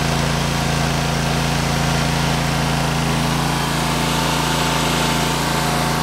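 A Ditch Witch walk-behind trencher's gasoline engine running steadily while the machine digs a trench. A faint higher whine joins about halfway through.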